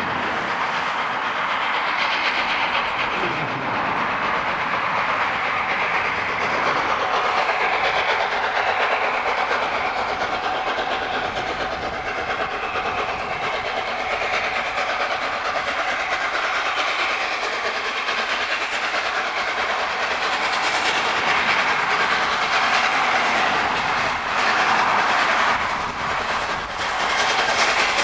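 LNER Peppercorn A2 three-cylinder Pacific steam locomotive 60532 'Blue Peter' approaching under steam with a train of coaches: a steady dense chuffing and rumble of exhaust and wheels on the rails. Sharp clicks and clanks come in near the end as it draws close.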